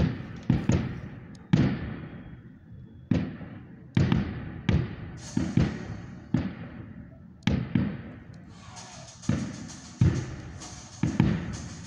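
Aerial fireworks going off in an irregular series of a dozen or so sharp bangs, each trailing off in an echo. About two-thirds of the way through, a steady hiss joins the bangs.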